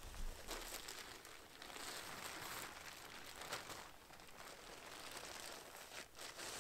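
Foil emergency blanket crinkling and rustling in irregular bursts as the person wrapped in it moves.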